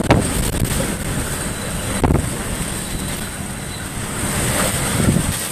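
Hurricane eyewall wind blowing hard, with wind noise on the microphone. It comes in strong gusts near the start, about two seconds in and near the end.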